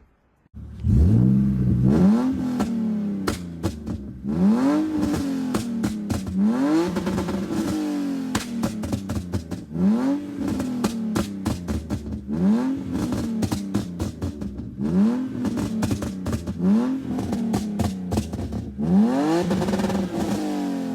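BMW E46 328i's 2.8-litre inline-six, stage 2 tuned, starting up about a second in and then revved in about eight quick blips, each dropping back to idle, with sharp pops and crackles as the revs fall.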